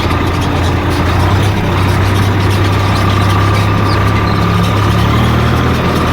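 Diesel engine of a JCB backhoe loader running steadily, with a thin high whine that holds for about three seconds in the middle.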